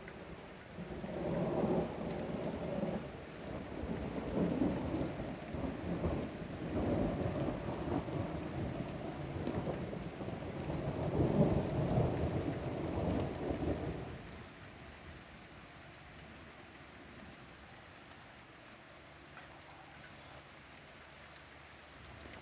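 Thunder rumbling in rolling waves for about thirteen seconds, then dying away about fourteen seconds in, leaving steady rainfall.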